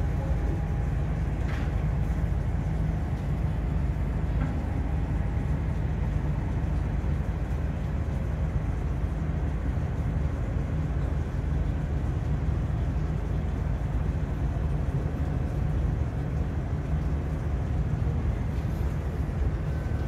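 Marine engine running with a steady low rumble and a faint steady hum over it.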